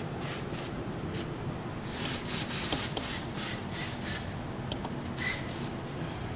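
Aerosol can of white lithium grease spraying onto garage door rollers in a string of short hissing bursts, thickest about two to four and a half seconds in.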